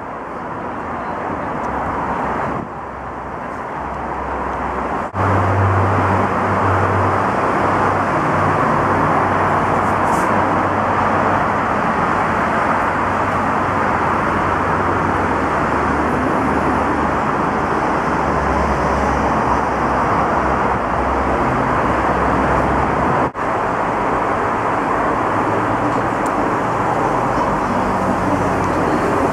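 Light-rail tram running, a steady rumble of wheels on rail and drive noise heard from inside the passenger car, with a few brief breaks.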